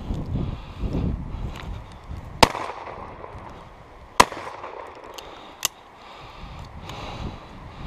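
Footsteps brushing through heather, then two shotgun shots about two seconds apart, and a lighter sharp click a second and a half after the second shot.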